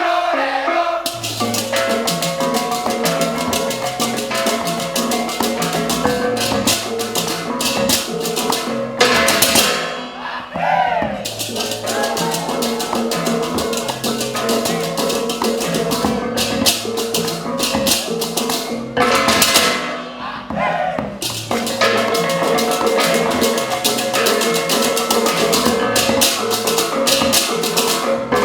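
Live ensemble music with a steady beat, sustained pitched tones and dense rattling percussion, breaking off briefly about nine and nineteen seconds in.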